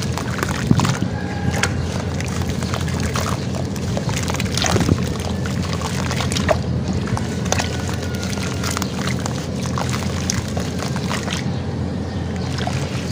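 Hands sloshing through water in a plastic tub, crumbling wet chunks of sand-cement: continuous splashing, with many small sharp splashes and crackles throughout.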